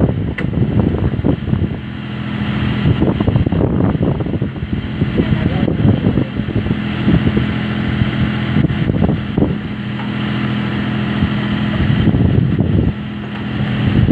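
Tractor diesel engine running steadily under load, driving the hydraulic pump of a rear-mounted backhoe as it digs. The engine note wavers a little, dipping briefly near the end.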